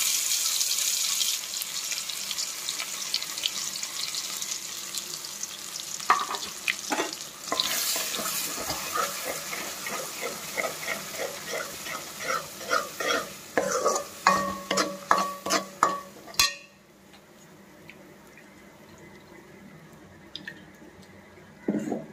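Ground chutney sizzling loudly as it hits hot tempering oil in a metal kadai, the sizzle fading over the first few seconds. A steel spatula then scrapes and knocks against the pan as the chutney is stirred in, in a run of sharp clicks that stops suddenly about 16 seconds in.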